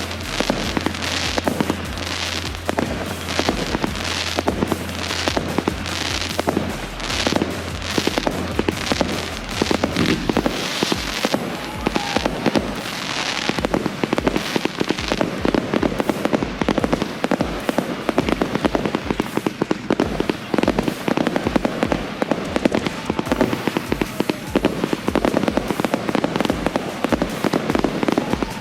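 Consumer (1.4G) fireworks going off in a continuous barrage: bangs at about two a second for the first half, then a denser, unbroken crackle and popping.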